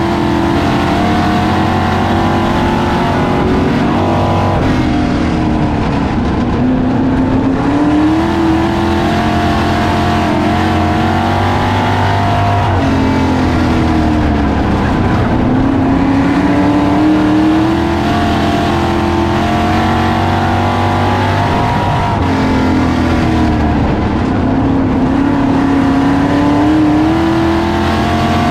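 Classics-class dirt-track race car's engine, heard from inside the cockpit at racing speed. It revs up along each straight and backs off sharply into each turn, about six times over.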